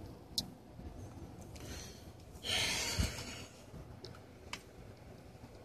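Quiet handling of a bare 2.5-inch hard drive: a few light clicks, and about two and a half seconds in a rush of noise lasting about a second, with a soft thump in the middle of it.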